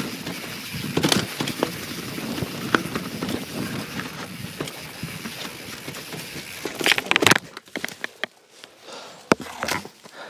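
YT Jeffsy mountain bike rolling over a wet, leaf-covered trail of roots and rocks, with steady tyre noise and frequent rattling knocks from the bike. About seven seconds in comes a crash: a quick cluster of loud thuds as bike and rider go down. Then only scattered soft scuffs and rustling in the leaves.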